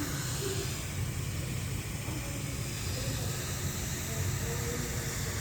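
Steady hiss of hot nitrogen gas blowing from a nitrogen plastic welder, over a low steady rumble.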